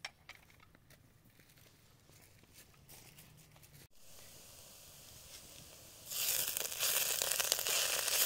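Chopped herbs and spices sizzling in a hot pot over a wood fire, with a small click at the start. The sizzle is soft at first, then turns loud and hissing about two seconds before the end as the mixture is stirred with a wooden spatula.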